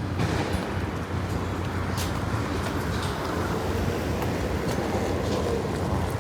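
Steady rumble of a train running, with a faint whining tone that rises in the second half and fades near the end.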